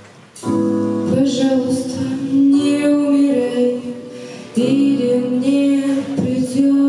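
A girl singing a pop song into a microphone over a backing track. Her voice comes in about half a second in and breaks briefly about four seconds in.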